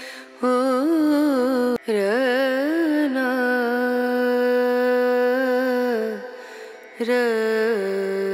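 Background music: a slow melody of long, ornamented held notes, with a short break about two seconds in and a longer pause around six seconds in.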